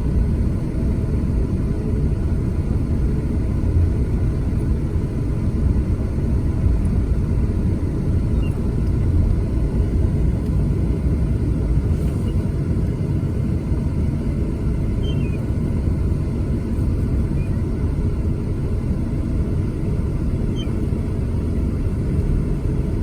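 Steady low rumble of a car, with engine and road noise and no distinct events.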